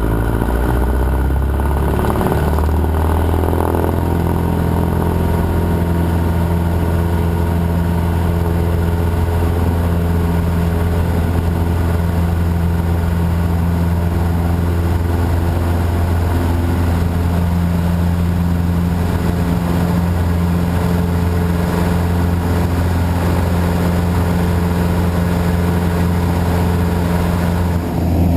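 Cessna 150J's four-cylinder Continental O-200 engine and propeller running steadily at a constant power setting, a loud even drone with a deep hum.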